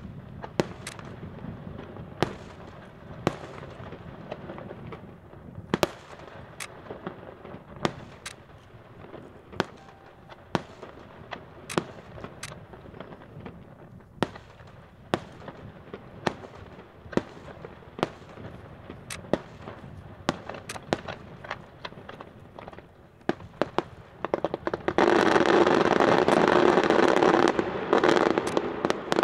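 Aerial firework shells bursting, with sharp separate bangs coming irregularly about once a second. Near the end a dense, loud continuous din lasts about three seconds.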